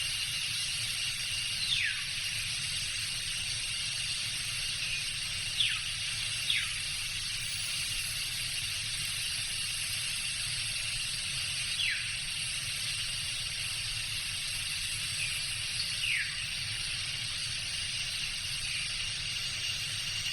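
Tropical jungle ambience: a steady high insect drone with a constant thin tone, over a low rumble, and a few short falling whistled calls from an animal, heard five times.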